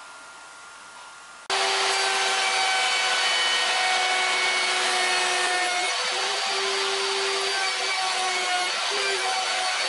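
Spindle moulder cutting a curved plywood piece fed along its fence. It comes in suddenly about a second and a half in, after a quiet start, as a loud, steady machine whine with cutting noise. The pitch wavers and dips briefly a few times as the wood is pushed past the cutter.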